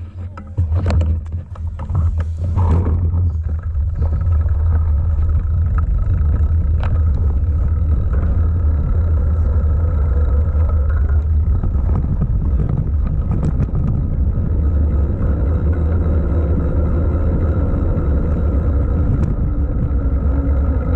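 Mountain bike rolling down a paved road, heard on the rider's action camera as a steady low rumble of wind on the microphone and tyre noise. A few clicks and a brief rattle come in the first few seconds.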